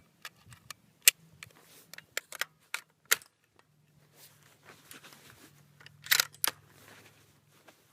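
Metallic clicks and clatter of the GA Precision Tempest bolt action being handled, with single sharp clicks about a second and three seconds in and a quick cluster about six seconds in, typical of the bolt being cycled between shots.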